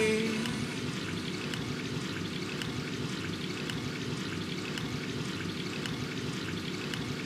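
A steady, even hiss like rain or running water, with no music or singing.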